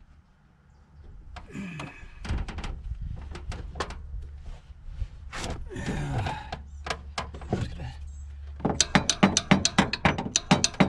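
Hand tools clinking and knocking against metal in an engine bay. About nine seconds in, a fast, even run of sharp clicks begins, about seven a second: a ratchet wrench being worked back and forth on a nut.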